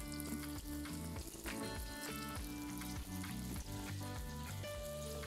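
Yeast doughnuts deep-frying in hot oil in an electric skillet, the oil sizzling steadily.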